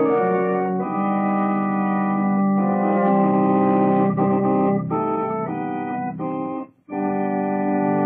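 Organ music playing a short dramatic bridge between scenes: a string of sustained chords that change every second or so, a brief break a little before the end, then a final held chord.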